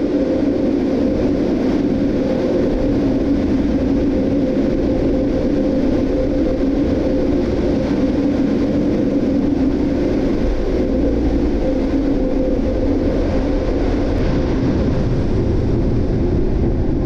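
Automatic car wash blower dryers running, a steady loud rush of air with a low, even hum, heard from inside the stalled car's closed cabin.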